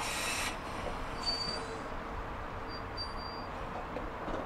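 A 1970s Waggon Union GT8 high-floor articulated tram pulling slowly into a stop: a high hiss that cuts off about half a second in, then a few short, high-pitched squeals from the running gear over a steady low hum.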